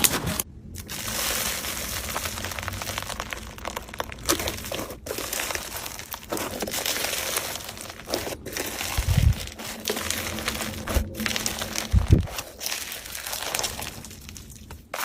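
Slime being worked by hand, giving a dense crinkly crackle of tiny pops and clicks, broken by brief pauses a few times, with two short low thumps in the second half.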